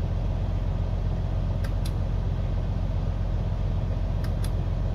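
Freightliner Cascadia truck's diesel engine idling steadily, heard from inside the cab. Two pairs of faint clicks come about a second and a half in and again near the end.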